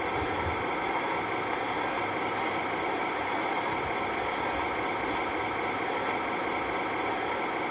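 Steady, unchanging droning noise with a faint constant hum, as of a motor or machine running; no change or sudden event.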